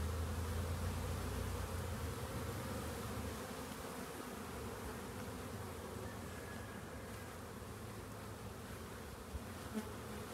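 Honeybees buzzing as they fly in and out of their hive entrances, a colony out foraging and bringing in pollen. The steady hum is louder for the first few seconds, then grows fainter.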